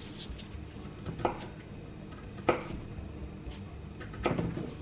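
Knife knocking on a cutting board while fresh ginger is peeled and chopped: three separate sharp knocks, the loudest in the middle.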